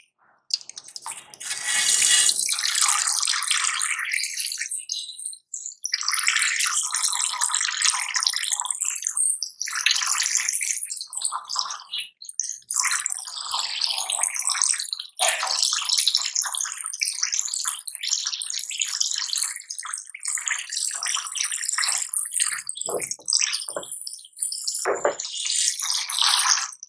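Wet slime mixture being stirred and squished, irregular squelching and splashing noises with short pauses and a few soft thumps near the end.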